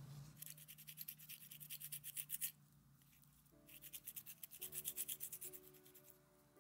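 Lemon peel being grated on a ceramic grater: the fruit rubbed back and forth over the raised nubs in quick, even scraping strokes, in two runs with a short pause in the middle. Soft background music comes in underneath partway through.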